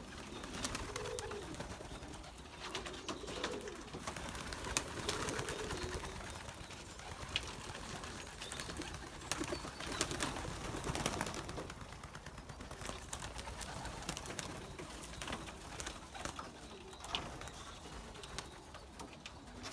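Young racing pigeons cooing low and softly, mostly in the first half, with scattered short clicks and taps among them.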